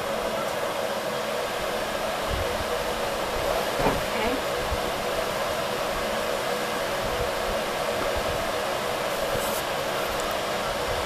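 A steady whooshing hum like a running fan or blower, with a light knock about four seconds in.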